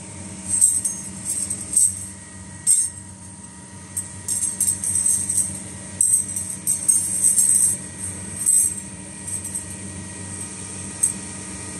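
Thin flat steel wire rings jangling and clinking against one another in irregular bursts, with a few sharper clinks, over a steady machine hum.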